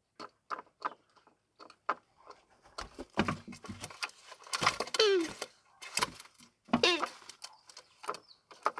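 Oriental turtle doves fighting: a string of short sharp claps and knocks, then several drawn-out calls that slide down in pitch, each under a second long.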